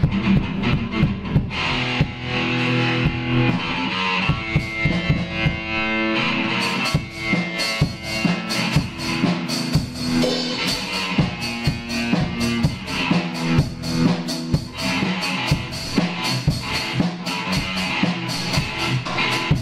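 Drum kit and electric guitar playing together in a band rehearsal: steady drum and cymbal hits under held guitar chords. The cymbals get busier about a third of the way in.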